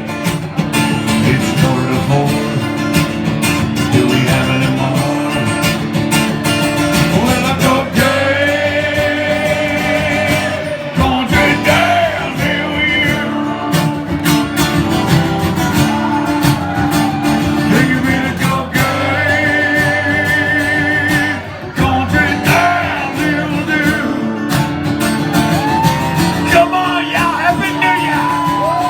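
Live country band playing, with a guitar carrying the lead in bent, wavering notes over steady lower parts.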